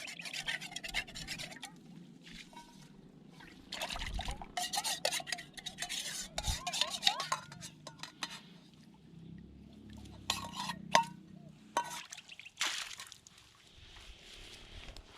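Camp cookware being handled: irregular rubbing and scraping with light metal clinks and clicks.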